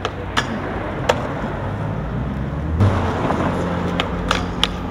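Steady low rumble of street traffic with sharp skateboard clacks: the deck's tail popping and the board knocking on concrete, a few at the start and a quick cluster near the end as the board is flipped over a metal rack.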